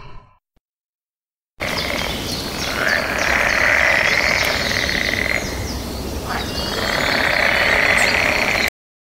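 A dense chorus of many frogs calling at once, a steady mass of high trills and chirps, starting about a second and a half in and cutting off suddenly near the end. The tail of a bear's growl fades out at the very start.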